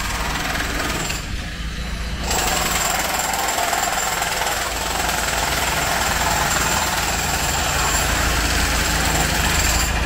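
Loud, steady mechanical noise with a thin high whine, dipping briefly about a second in, then running on.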